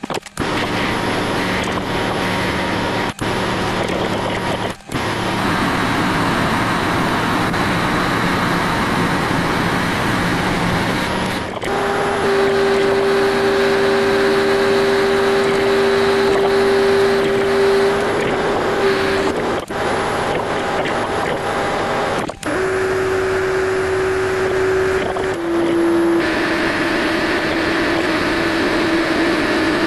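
Weiler Matador SV metal lathe running and rough-turning a metal bar, a dense steady machining noise broken by several abrupt jumps as the footage is fast-forwarded. A steady hum-like tone joins about twelve seconds in.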